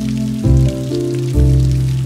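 Mellow cafe jazz music with a low bass line, new notes coming in about half a second in and again near the end, over a steady hiss of rain.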